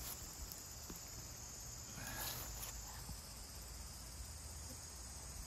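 Faint, steady high-pitched insect chirring, which stops about three seconds in, with a light rustle about two seconds in.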